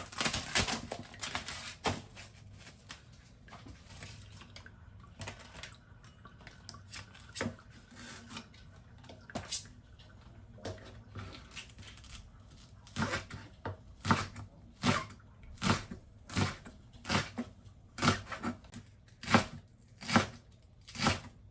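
Knife slicing onions on a cutting board: scattered taps at first, then a steady run of sharp chops, about one or two a second, through the last third.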